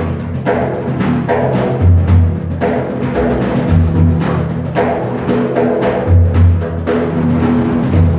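Large hand-played frame drums: deep bass strokes about every two seconds, with ringing tones and quick finger taps between them.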